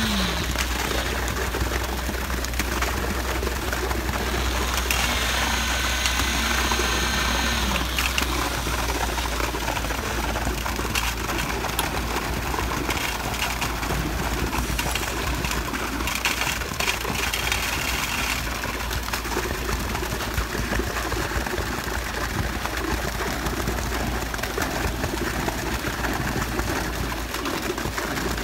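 Concrete truck's diesel engine running steadily, a constant low rumble, as wet concrete pours from its chute into a rebar-filled footing form.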